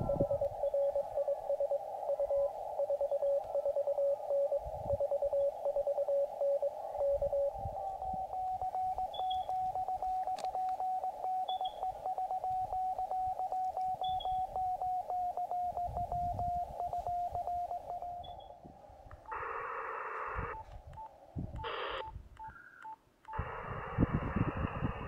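Morse code (CW) received on a portable amateur radio transceiver: one station keying a steady tone, then a second station at a slightly higher pitch sending a call exchange. Near the end, receiver hiss cuts in and out with a brief beep as the radio is retuned.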